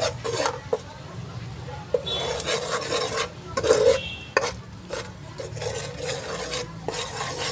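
Spatula scraping and stirring chopped garlic through a thick, sticky sauce in a granite-coated pan, in a run of irregular strokes, with a light sizzle underneath.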